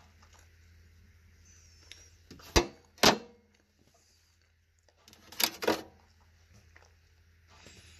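Sharp clicks from a Mitsubishi key fob being handled: two single clicks about two and a half and three seconds in, then a quick cluster of clicks near six seconds.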